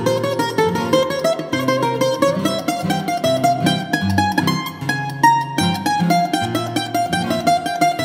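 Greek bouzouki playing a free solo taximi improvisation in the Hitzaz mode: quick runs of plucked notes over low, sustained bass notes.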